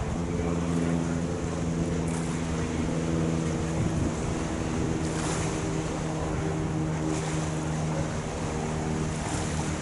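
Ship's diesel engine droning with a steady low hum, under wind and water noise that swells briefly twice, about five and seven seconds in.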